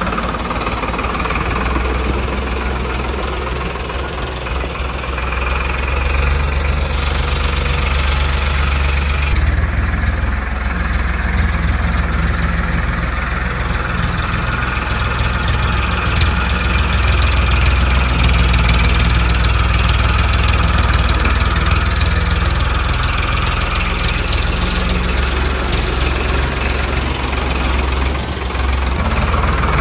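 Diesel tractor engine running steadily at low revs, a deep hum that grows a little louder over the first ten seconds or so.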